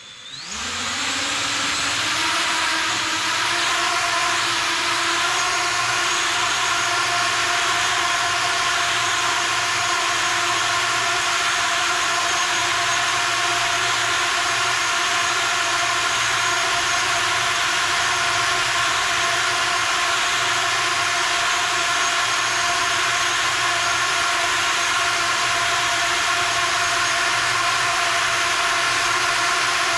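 Six-inch racing quadcopter's four brushless motors and propellers spinning up, rising in pitch over the first second or two, then holding a loud, steady whirring whine in a low hover.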